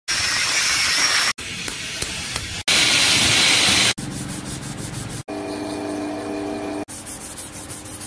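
Quick cuts between workshop sounds of knife making. An angle grinder's disc cuts leaf-spring steel in two loud hissing spells, and hand sanding makes rapid, even back-and-forth strokes on the blade and the micarta handle. A short steady machine hum comes between the sanding passages, and each sound stops abruptly at a cut.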